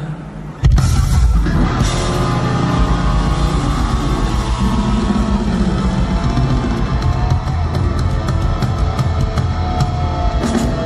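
Live rock band playing without vocals: electric guitar over a drum kit. The full band comes in loud about half a second in after a brief quieter moment and keeps going steadily.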